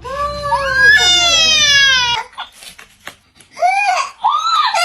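Baby crying: a long wail that falls in pitch, a lull of about a second and a half with a few small clicks, then short sobbing cries that build into another wail near the end.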